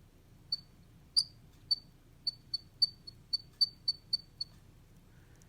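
A series of about a dozen small, sharp clicks, each with a brief high ring. They come irregularly at first, then about four a second for the last couple of seconds.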